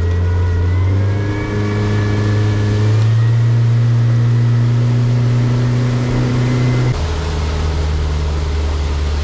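Boat's outboard motor running under throttle, its pitch stepping up twice in the first few seconds and holding, then dropping back to a lower steady idle-like note about seven seconds in.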